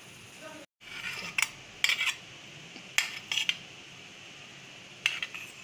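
Stainless-steel idli plate and utensils clinking and scraping against a steel bowl as steamed grated tapioca is knocked and scraped off the plate. The sound comes in about five short, sharp clusters, a second or so apart.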